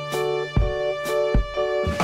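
Instrumental background music with a drum beat, held chords and a low bass line.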